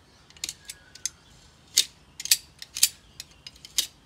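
Utility knife blade shaving the wooden axe handle where it stands proud of the axe eye, trimming off the curl of wood raised as the head was forced on: a string of short, sharp, irregular snicks, louder and closer together in the second half.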